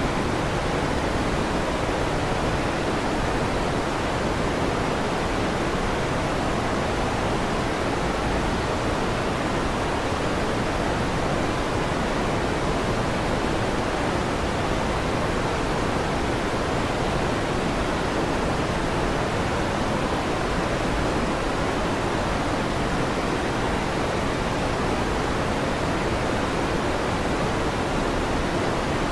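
Electric fan running: a steady, even whoosh that does not change.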